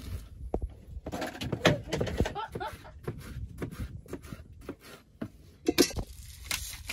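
Knife slicing pineapple on a plastic cutting board, with a series of uneven knocks as the blade strikes the board.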